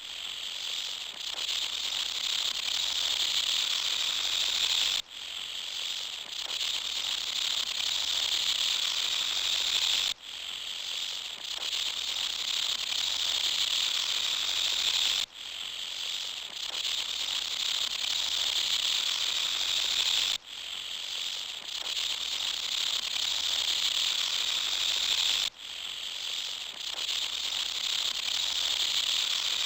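A steady, high, rasping insect chorus, like cicadas or crickets, from a forest. The same stretch of about five seconds repeats over and over, with a brief dip in level at each join.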